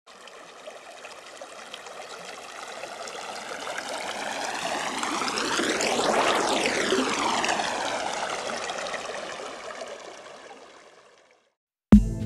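Rushing, streaming water sound effect for an animated logo intro, swelling to a peak about halfway through and fading away, with a sweeping whoosh running through it. Music starts abruptly just before the end.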